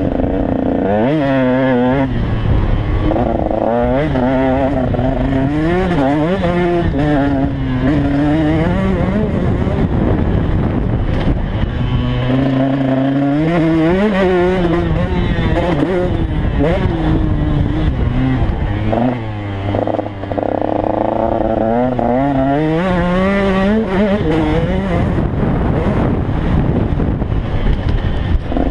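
2014 KTM 150 XC two-stroke single engine being ridden hard on a motocross track. Its pitch climbs and falls again and again as the throttle is opened and shut and gears are changed. About two-thirds of the way through it briefly drops off the throttle and then picks up again.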